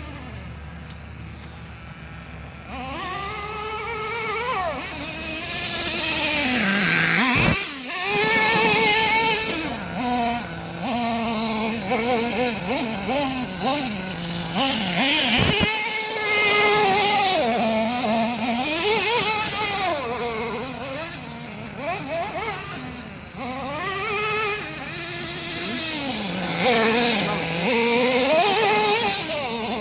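Small nitro engine of a Redcat Earthquake 3.5 RC monster truck revving up and down over and over as the truck is driven, its high buzzing pitch rising and falling with each burst of throttle. It starts softer and picks up after a couple of seconds, with two brief drops in sound about a third and halfway through.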